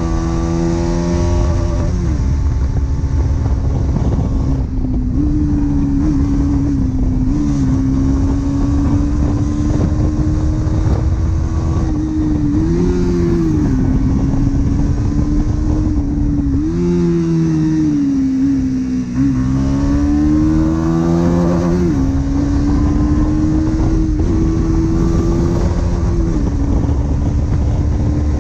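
Bajaj Pulsar NS200 single-cylinder engine with its stock exhaust, ridden on the road. The engine note holds fairly steady, then briefly falls and climbs back several times, around 2, 13, 17 to 19 and 22 seconds in. A steady low rumble runs beneath it.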